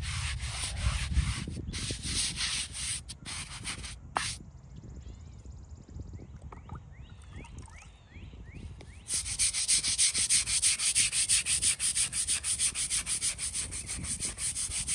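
A weathered stone headstone being scrubbed by hand, quick back-and-forth strokes at about five a second. The scrubbing runs for about four seconds, pauses for about five seconds, then starts again louder.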